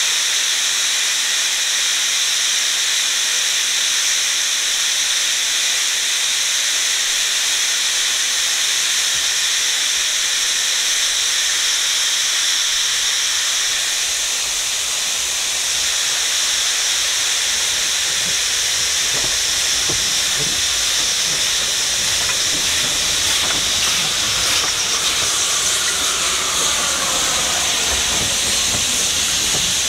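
Narrow-gauge steam tank locomotive hissing loudly and steadily with escaping steam. In the second half the train's wheels rumble and click as the locomotive and coaches pass over the points.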